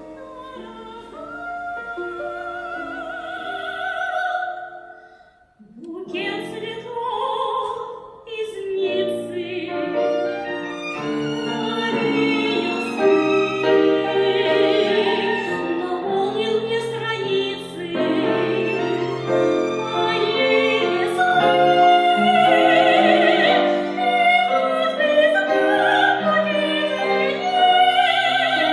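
Lyric-coloratura soprano singing a romance with vibrato, accompanied by violin and piano. About five seconds in, the music breaks off briefly, then singing and accompaniment resume.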